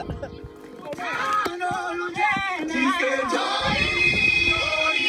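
Music with singing voices, the singing coming in about a second in.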